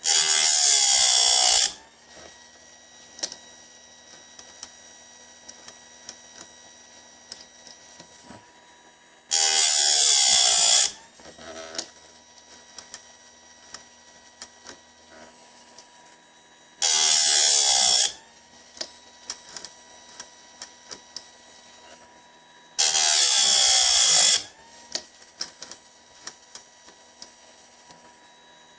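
Bench-mounted electric chainsaw chain sharpener grinding the chain's teeth one at a time: four short, loud passes of the grinding wheel against a cutter, each about a second and a half, with light clicks and taps between them as the chain is moved on to the next tooth.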